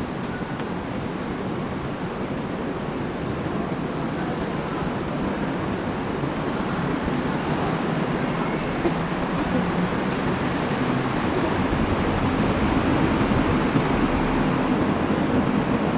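Steady rumble of passing vehicles, growing gradually louder.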